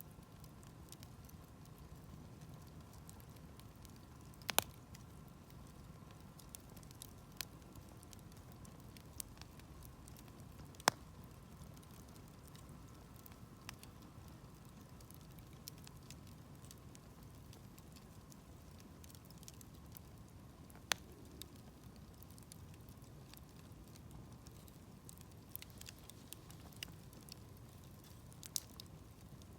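Wood campfire crackling: a scatter of small ticks with a few sharp, louder pops, the loudest about 5 and 11 seconds in.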